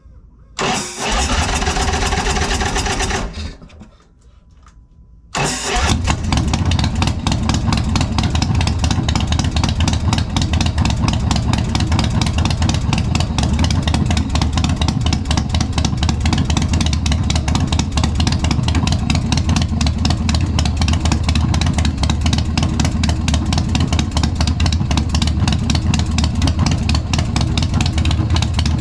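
Big Dog motorcycle's big-twin V-twin with a 585 cam: a first go of about three seconds stops, and about five seconds in it starts and settles into a steady idle through the exhaust, with a rapid even firing pulse.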